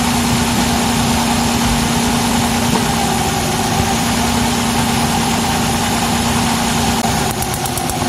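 Nissan Cefiro A32's V6 engine idling steadily, heard close up in the engine bay, with a few light clicks near the end. The engine is being checked for a cylinder misfire from an aging ignition coil.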